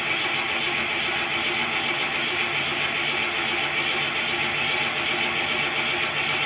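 Starter motor cranking the carbureted engine of a 1981 Buick Regal over steadily without it firing. This is a deliberate dry crank after long storage, pushing oil through the galleries to the bearings so that the engine does not dry start.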